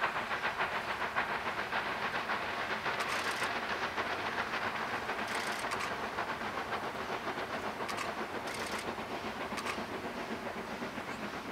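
Garratt articulated steam locomotive working hard as it approaches, its exhaust chuffing in a rapid, even beat. A few brief high-pitched sounds break in over the beat.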